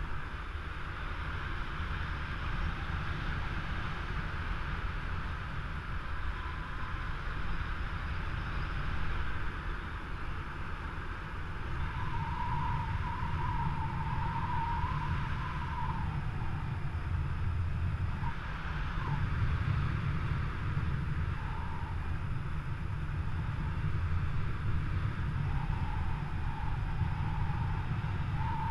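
Wind rushing over the camera microphone of a paraglider in flight: a steady low rumble with a hiss over it, and a faint wavering whistle that comes and goes in the second half.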